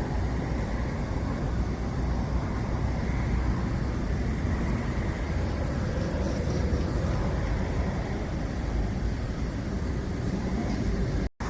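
Steady low rumble with a hiss, without distinct events, cutting out briefly near the end.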